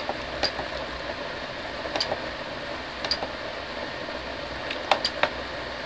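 Menu buttons of a UTECH DVX-600 camcorder pressed about five times: each press gives a short click with a brief high key beep, over a steady faint hiss.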